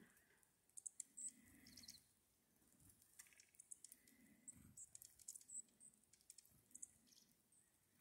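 Faint, short, high chip notes and twitters from a flock of dark-eyed juncos feeding on the ground, scattered irregularly, with a few soft clicks.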